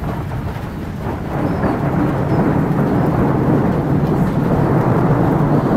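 Thunder from a nearby thunderstorm: a low, steady rumble that swells about a second in and holds.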